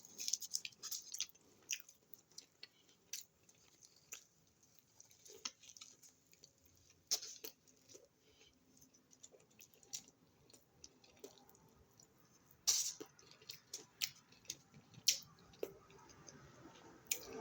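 A person chewing food close to the microphone: quiet, irregular mouth clicks and wet sounds, with a few louder ones near the end.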